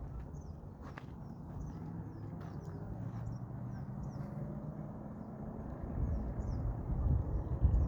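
Outdoor evening ambience: a steady low rumble, louder and gustier near the end, like wind on the microphone, with faint short high chirps repeating throughout.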